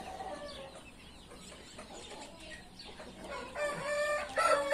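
Rooster crowing, a loud held call that starts about three and a half seconds in and is still going at the end, after a few faint chirps from the flock.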